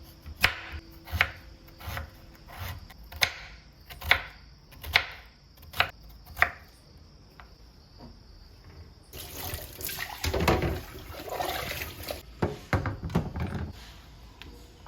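A series of about nine sharp knocks, a little under a second apart. Then, about nine seconds in, water runs from a tap into a sink for a few seconds.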